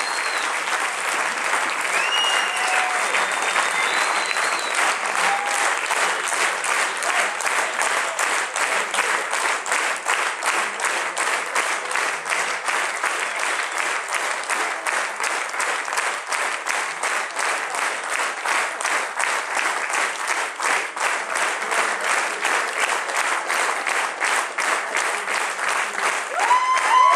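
Large crowd applauding steadily, a dense patter of many hands clapping, with a few voices calling out over it and a louder cheer near the end.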